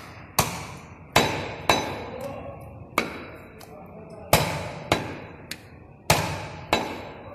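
Butcher's cleaver chopping a goat leg on a wooden chopping block: about nine sharp, heavy strikes at uneven spacing, some in quick pairs, one weaker than the rest.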